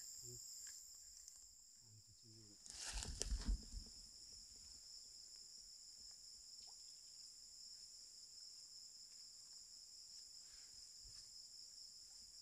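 Steady, faint, high-pitched chorus of night insects in swamp grass. About three seconds in, a short, louder burst of noise.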